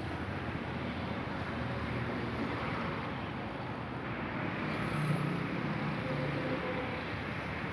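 Road traffic going by: a steady wash of car and motorbike noise, with some wind on the microphone. It swells briefly about five seconds in.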